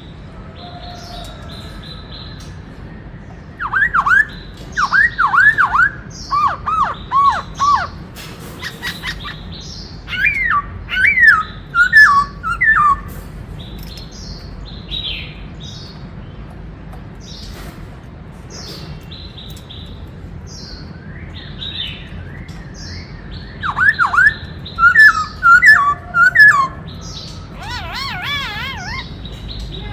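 Black-throated laughingthrush singing loud, swooping whistled phrases in three spells: about 4 s in, around 10 s, and again around 24 s. Softer, higher chirps come between the spells.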